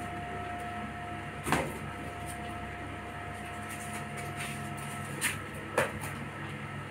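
Kittens bumping inflated latex balloons about on a tile floor: three short sharp taps, one about a second and a half in and two close together near the end, over a steady low room hum.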